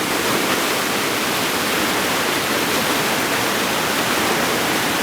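Whitewater of a river rapid rushing steadily, a dense hiss with no breaks.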